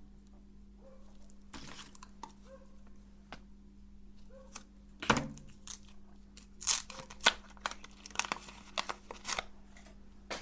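Irregular crinkling and tearing sounds from handling the mini ice creams, with a few loud crackles about five to seven seconds in, over a steady low hum.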